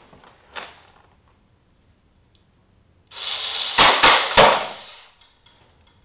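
Homemade spring-loaded sledgehammer can crusher going off: a rush of rattling mechanical noise about three seconds in, then three sharp snaps and bangs in quick succession as the trip mechanism releases and the sledgehammer slams down onto the can, crushing it.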